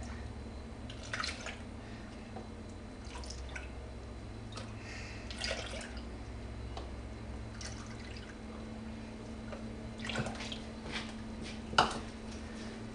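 Milk poured from a measuring cup into a stainless steel saucepan of custard powder and sugar, splashing in a series of short pours, with a sharp knock near the end.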